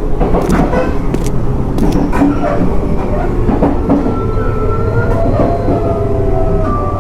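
Train sound effect: a train running on rails, with a dense rumble and the clack of wheels over track joints. About four seconds in, a long, slightly wavering high tone joins in.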